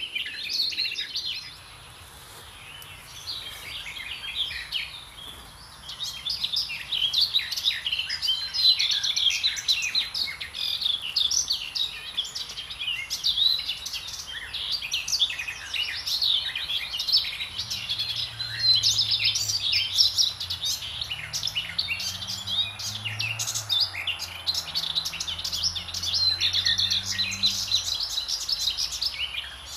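Many small songbirds chirping and singing at once in a dense, overlapping chorus, briefly quieter for a few seconds near the start. From a little past halfway, a faint low drone with slowly wavering pitch runs underneath for about ten seconds.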